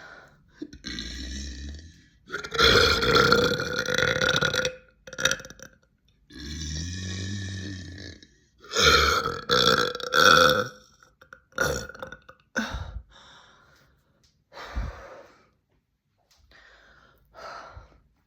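A person belching a run of long, loud, deep burps, the longest about two seconds each, then a few shorter ones spaced further apart.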